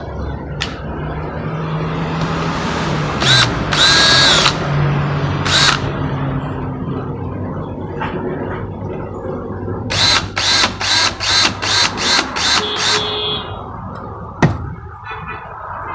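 A power drill-driver running in spells while screws are taken out of a door lock, with brief high squeaks a few seconds in and a quick run of about seven sharp strokes about ten seconds in.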